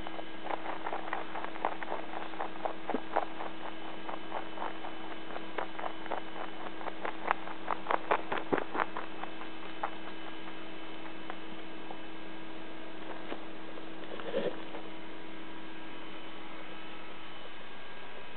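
A Holland lop rabbit moving about right at the camera, making many small taps and clicks that come thick in the first half and then thin out to a few. A steady electrical hum lies under it throughout.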